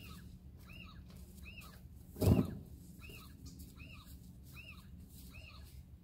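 A bird calling: a short, arched chirp repeated several times, a little under a second apart. A single dull thump about two seconds in is the loudest sound.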